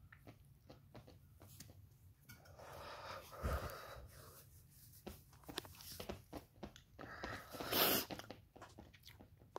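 A man's breathing close to the phone's microphone, with small clicks and rustles of his hand against his face and the phone; a longer breath a few seconds in and a louder, breathy one about eight seconds in.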